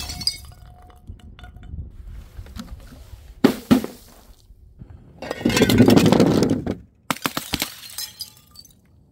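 Glass breaking. Small pieces clink at first, then come two sharp knocks, then a longer crash of shattering glass with shards clinking as they settle.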